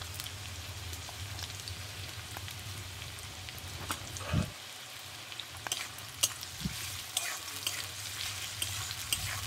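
Sliced onions sizzling and crackling in hot mustard oil in a metal kadai. A metal spatula scrapes and stirs them in the second half. There are a couple of dull thumps near the middle.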